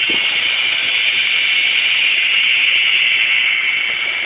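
Homemade high-frequency violet ray device running: a steady hiss from its spark gap and electrode discharge.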